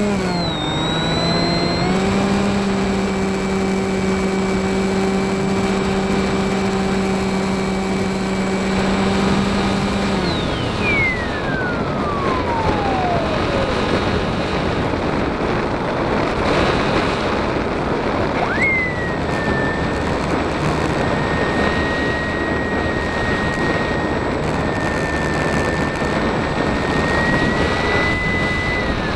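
Radio-controlled FPV plane's motor and propeller, heard from the onboard camera with wind rushing past. A steady hum glides down in pitch and fades about a third of the way through as the throttle comes off. A higher steady whine starts suddenly about two-thirds of the way in and glides down again at the end.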